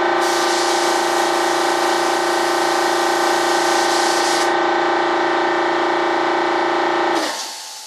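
Air compressor running with a steady hum while a spray gun hisses in two spells; the compressor stops about seven seconds in and winds down.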